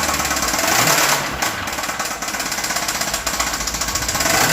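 Engine running hard with a loud, rapid rod knock hammering away; the revs climb about a second in, drop back, and climb again near the end. The knock is a failing connecting-rod bearing, being run on purpose to throw the rod.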